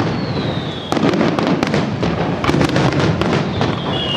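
Aerial fireworks display: a dense run of bangs and crackling, with a falling whistle at the start and another near the end.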